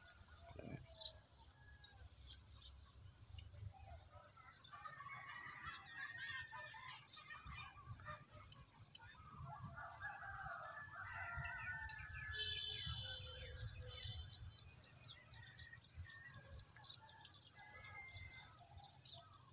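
Faint outdoor ambience of birds chirping and calling, domestic fowl among them, over a high, pulsing trill of insects.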